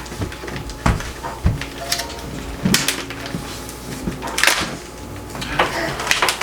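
A cardboard advent calendar being handled as its doors are pried open: scattered clicks, taps and crackles of cardboard, with louder crackles about a third of the way in and again past the middle.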